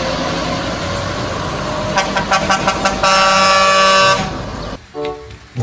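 Heavy truck engine running as a lorry passes close by. About two seconds in, a truck air horn sounds a quick string of short toots and then one long blast, the loudest sound here.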